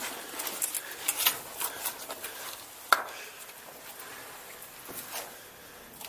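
Irregular scuffs, scrapes and clicks of people moving close by on a gritty lava-tube floor and rock, busiest in the first couple of seconds, with one sharp click about three seconds in.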